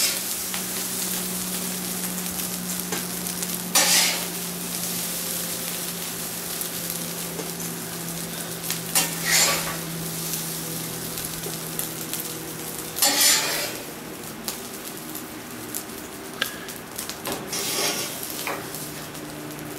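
Rice sizzling on a hot flat-top griddle, with a metal spatula scraping across the griddle surface several times, a few seconds apart, as the rice is pushed and scooped up.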